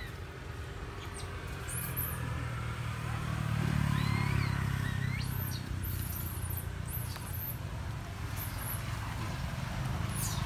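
Low engine rumble of a passing vehicle, swelling to its loudest about four seconds in and then easing off. A couple of short rising-and-falling chirps come around the same time.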